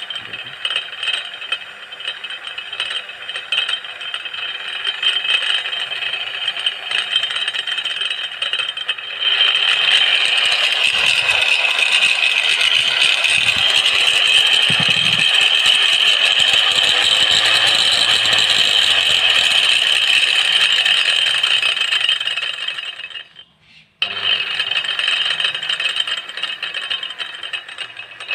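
Angle grinder with a toothed circular saw blade running off a homemade speed controller, first at reduced speed. About nine seconds in it speeds up and runs louder. Near the end it drops out for about a second, then runs again.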